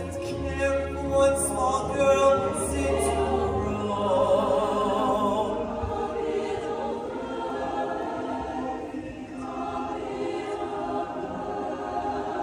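Mixed-voice show choir singing together in held, chordal lines, over low held bass notes that stop about four seconds in.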